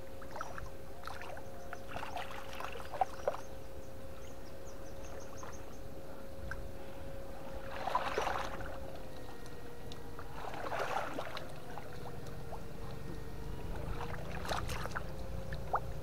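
Water splashing and sloshing during electric fishing in a river, in louder bouts about halfway through, near two-thirds and near the end, with a couple of sharp clicks early on. Under it runs a steady high electrical whine from the fish-shocking unit, which sags in pitch for a few seconds after the middle splashes.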